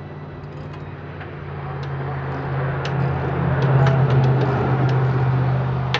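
A motor engine running with a steady low hum, swelling to its loudest about four seconds in and then easing off, with light clicks scattered over it.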